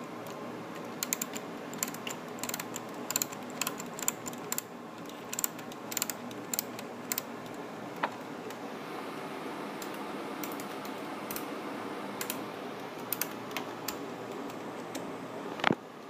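Irregular small clicks and ticks of a screwdriver working a screw in the metal chassis of a slot-loading iMac, with one louder click near the end.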